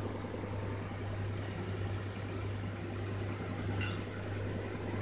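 A steady low hum under a faint hiss, and about four seconds in a single sharp metallic clink of steel kitchenware being knocked or set down.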